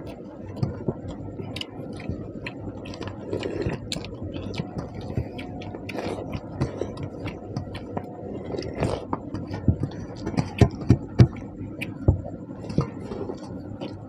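Eating sounds: chewing and scraping at wet rice, with many short sharp clicks and knocks, the loudest a quick cluster of knocks about ten to eleven seconds in.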